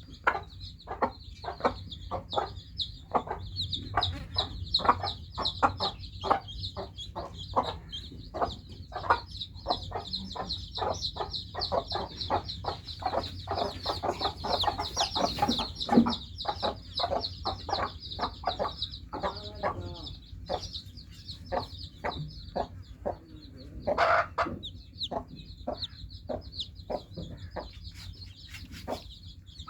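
Newly hatched chicks peeping continuously in a high, dense chorus, while a hen clucks over them in short repeated clucks. A louder call stands out about two-thirds of the way through.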